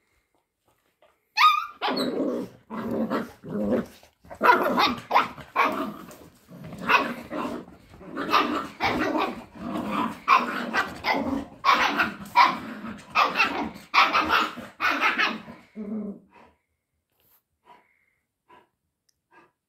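Dogs at play: a short high yip, then a fast run of growling barks that goes on for about fifteen seconds and stops near the end. It is play-growling, not aggression.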